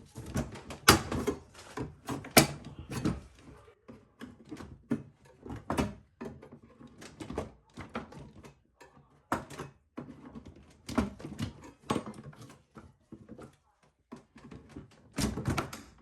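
Irregular knocks, clacks and rattles of plastic refrigerator parts being handled and worked loose, some louder bangs among them.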